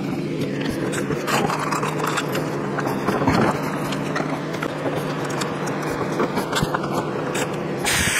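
Plastic rod holder and milk crate being handled and fitted together: scattered clicks, knocks and scrapes over a steady background hum, with a short hissing burst of noise near the end.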